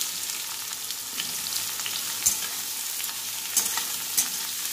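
Chopped onions sizzling steadily as they fry in hot mustard oil and ghee in a metal kadai. A metal spatula stirs them, scraping and clicking against the pan a few times.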